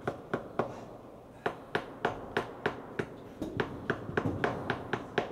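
Small hammer tapping tacks, a quick steady run of light sharp taps about three to four a second, with a brief pause about a second in.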